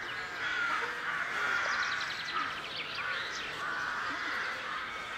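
Birds calling and chattering, many short chirps and calls overlapping, with a quick run of repeated notes about two seconds in.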